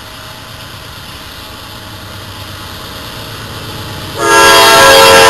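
Horn of an approaching CSX GE AC4400CW diesel locomotive: a loud multi-tone chord starts about four seconds in, sounding for the grade crossing. Before it there is steady background noise that grows slowly louder.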